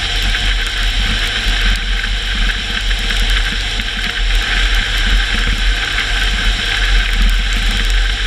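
Car driving on a wet road: steady hiss of tyres on water and spray, over a low, constant rumble of engine and road.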